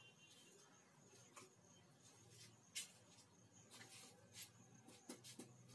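Near silence: room tone with a faint steady hum and a few scattered faint clicks.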